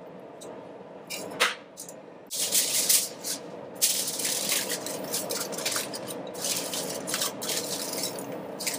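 Aluminium foil crinkling and crackling in irregular bursts as it is pressed and crumpled by hand over a plated bird, starting about a second in and running almost without a break from about two and a half seconds.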